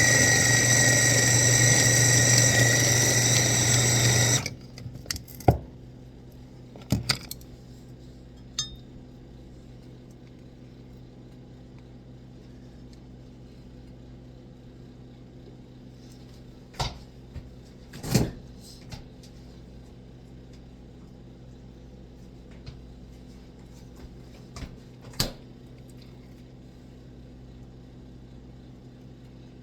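A kitchen blender's motor runs at full speed blending nuts into peanut butter, with a steady whine, then cuts off suddenly about four seconds in. Afterwards a few scattered clicks and knocks follow, like the jar or lid being handled.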